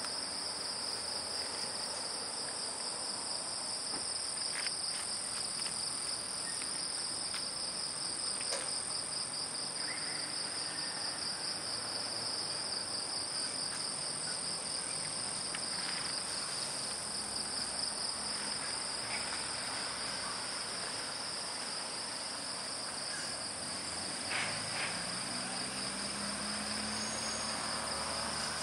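A chorus of crickets trilling steadily, with two high trills at different pitches sounding together. A few faint clicks are scattered through it.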